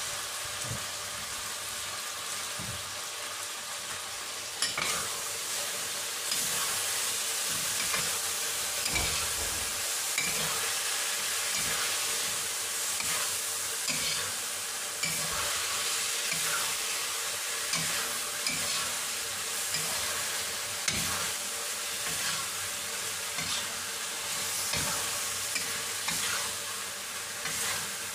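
Salmon stir-fry sizzling steadily in a steel wok over a gas flame, with a metal spatula scraping and clattering against the pan in short, irregular strokes as the food is turned.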